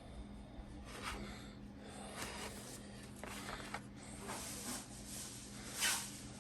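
Paintbrush stroking green paint onto a plastic model figure: a series of soft brushing strokes about a second apart, the last one the loudest, over a faint steady hum.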